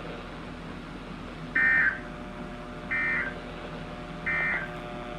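NOAA Weather Radio EAS end-of-message data bursts: three short, identical warbling digital tone bursts about 1.4 seconds apart, the signal that the alert message has ended, over steady radio hiss and faint hum.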